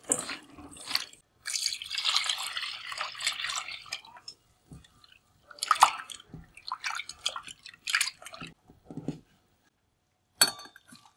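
Hands squishing raw squid pieces in a stainless steel bowl. Water then runs into the bowl for about two and a half seconds, and the squid is rinsed, sloshed and splashed around in it by hand. A short splash comes near the end as the squid is drained through a mesh strainer.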